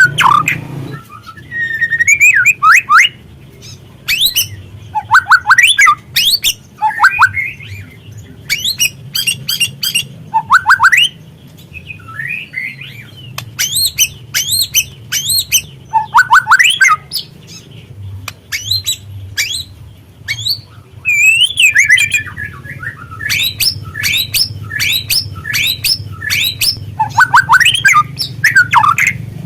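Juvenile white-rumped shama singing: bursts of quick swooping whistles and chattering notes, one every second or two, over a steady low hum.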